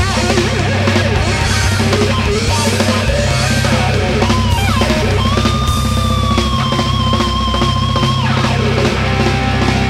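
Live rock band playing an instrumental passage: electric guitar soloing over drums and bass. About four seconds in the guitar slides up into a long held note that sustains for about three seconds, then falls away.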